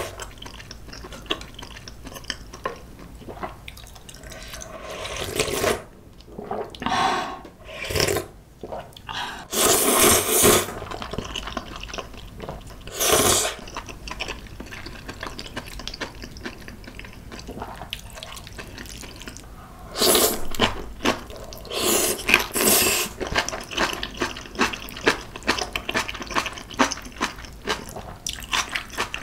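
Close-miked eating sounds: sipping hot clam noodle soup (bajirak kalguksu) broth from a ladle and slurping noodles, with wet chewing between. Several loud slurps stand out.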